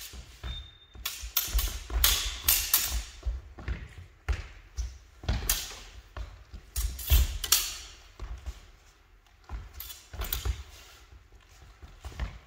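Spadroon fencing: irregular thuds of stamping, lunging feet on a wooden sports-hall floor, mixed with sharp clacks of the steel blades meeting.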